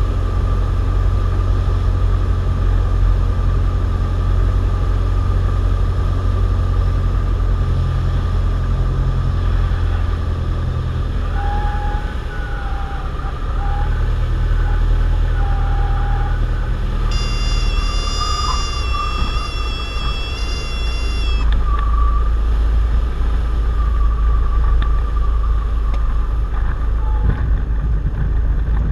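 Cessna 172's engine and propeller droning in the cockpit, easing about twelve seconds in as power comes back for the landing. A high, wavering horn sounds for about four seconds around touchdown: the stall warning horn in the flare. A low rumble follows through the rollout.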